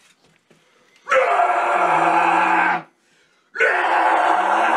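Two harsh extreme-metal vocal screams, each about a second and a half long, with a short gap between them, sung into the microphone as a level check before recording vocals.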